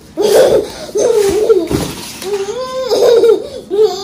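A young child's high-pitched voice squealing and vocalizing loudly in about four short bursts.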